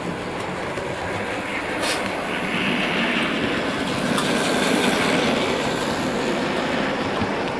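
OO gauge Dapol Class 22 model diesel locomotive running along the track, its small electric motor whirring and wheels running on the rails. The sound swells as it passes close, about three to five seconds in, then eases off.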